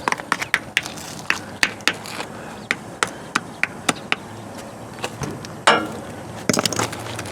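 Irregular sharp taps and knocks of hard objects on rock and old mortar, a couple of dozen in all, with a short scrape a little before six seconds and a quick cluster of knocks just after it.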